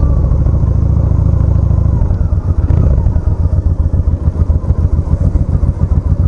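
2005 Honda Shadow V-twin motorcycle engine running at low speed. About two seconds in it drops to an uneven, pulsing idle as the bike rolls slowly toward the pump.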